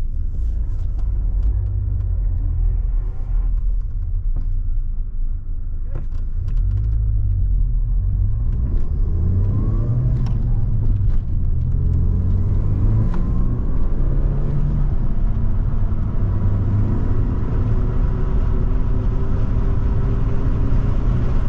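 Audi A3's 1.8-litre turbocharged four-cylinder engine running in limp mode, its power cut by fault code 17743. The engine note climbs in pitch from about eight seconds in and then holds steady, with a few sharp clicks in the first several seconds.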